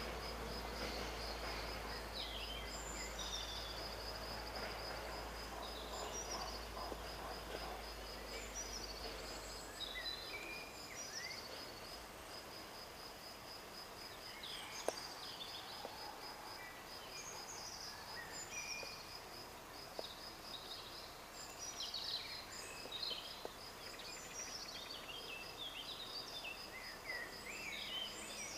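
An insect keeps up a high, even, pulsing trill, and several songbirds chirp and sing over it, busier near the end. A low rumble underneath stops about ten seconds in.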